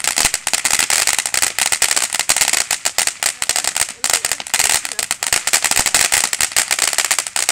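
Ground fountain firework spraying sparks, with a dense, continuous crackle of many small pops over a steady hiss.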